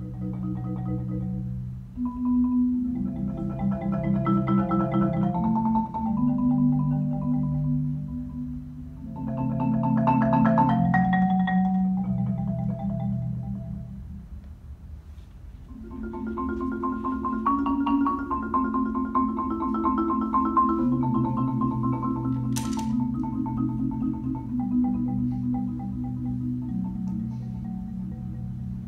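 Concert marimba played with mallets: long rolled chords in the low and middle register that swell loud, die away around the middle, then build again. A brief sharp click about three-quarters of the way through.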